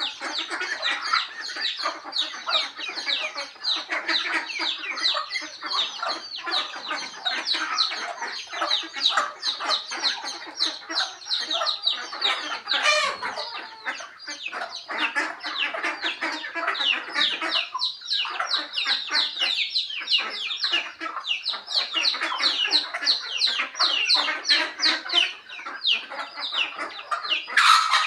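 A feeding farmyard flock of chickens and ducks calling without pause. Young birds among them make a dense stream of short, high, falling peeps over lower clucking. A brief louder noise comes about halfway through, and the loudest comes near the end.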